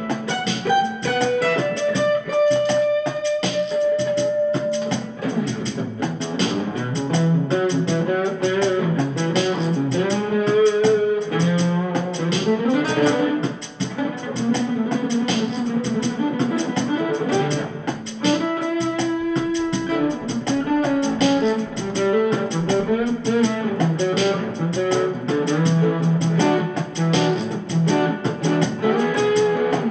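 Instrumental music with held and moving melodic notes.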